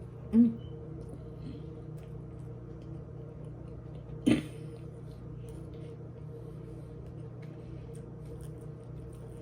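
A person eating a Subway footlong sandwich against the clock, over a steady low hum, with two short loud mouth or throat noises: a brief hummed sound about half a second in and a sharper, breathier one a little past four seconds.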